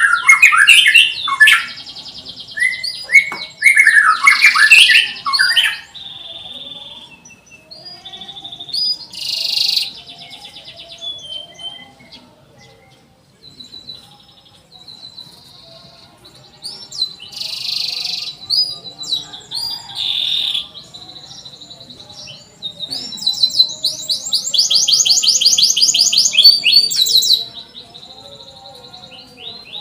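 Domestic canary singing: varied chirps and whistled phrases, loudest in the first six seconds, with a long, fast rolling trill about three-quarters of the way through.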